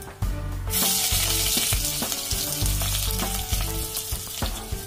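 Sliced onion and green chillies dropped into hot coconut oil in a clay pot, setting off a loud, steady sizzle that starts suddenly about a second in.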